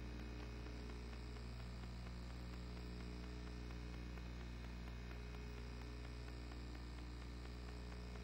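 Steady low electrical mains hum with faint hiss underneath.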